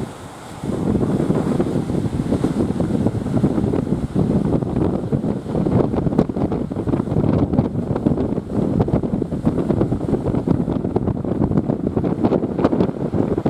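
Wind buffeting the microphone in gusts, over the rush of surf. It drops briefly at the start and picks up again after about half a second.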